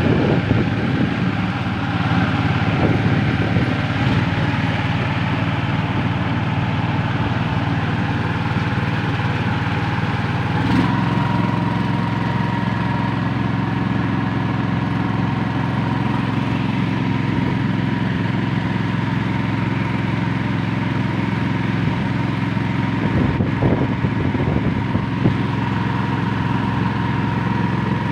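Small boat engine running steadily under way on a river, its note shifting about ten seconds in.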